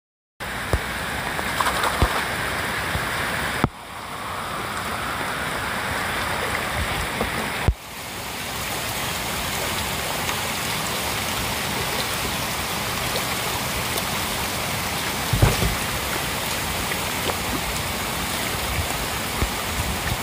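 Heavy rain pouring onto a fish pond, a steady hiss of water on the surface, with occasional splashes from fish feeding and thrashing at the surface. The sound dips sharply and builds back twice, about four and eight seconds in.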